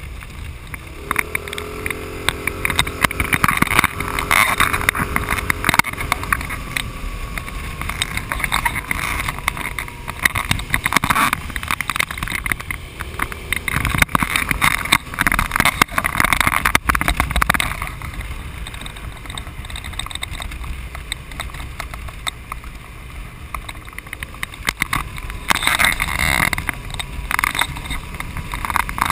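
Wind rushing and buffeting over the microphone of a camera mounted on a moving motorcycle, with the bike's engine running underneath. About a second in, a pitched engine note rises and holds for several seconds, and a fainter one returns midway.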